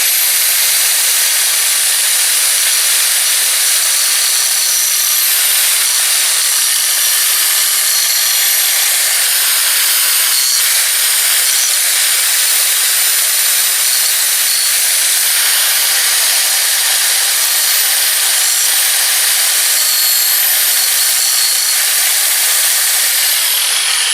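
Large angle grinder grinding weld metal off a steel skid-steer bucket tooth so it will fit into place: a steady high whine over a harsh grinding hiss. Near the end the grinder's whine falls as it winds down.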